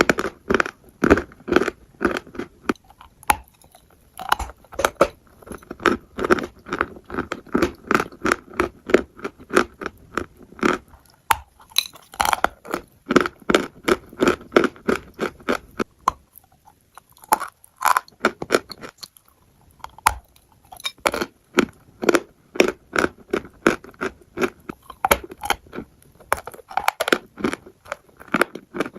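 A person chewing crunchy food close to the microphone: rapid crunches several times a second, broken by a few short pauses.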